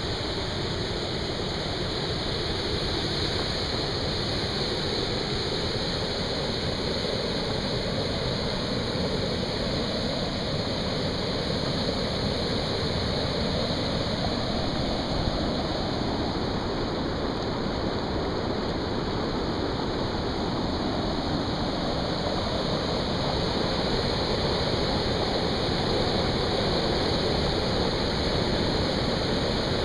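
Muddy floodwater of a flash flood rushing steadily down a normally dry rambla (stream bed) and pouring over a broken, undercut concrete road ford.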